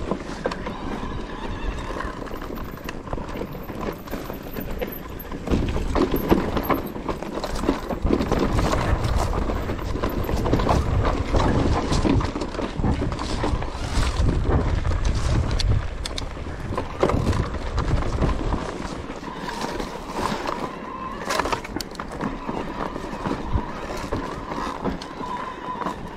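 Mountain bike riding down a rough, rocky trail: tyres bumping and clattering irregularly over stones and the bike rattling, with wind rumbling on the microphone.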